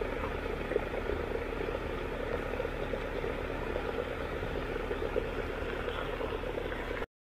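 Steady hum and water churning of a pond paddlewheel aerator, cutting off suddenly near the end.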